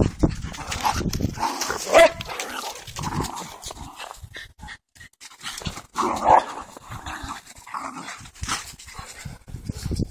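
A large dog and a small dog play-fighting and chasing in snow: scuffling, with dog vocal bursts that are loudest about two seconds in and again about six seconds in.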